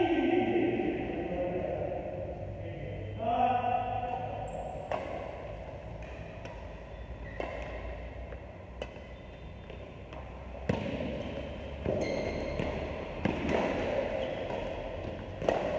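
Badminton rally in a large echoing hall: sharp racket strikes on the shuttlecock about every second or so, with players' brief shouts in between.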